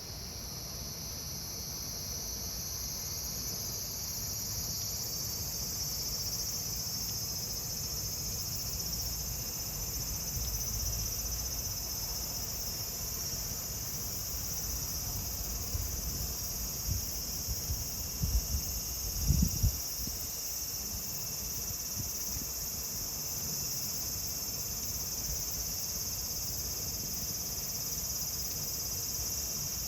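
Cicadas singing in a dense, steady high-pitched drone that swells over the first few seconds. There are a few brief low rumbles or thumps a little past halfway.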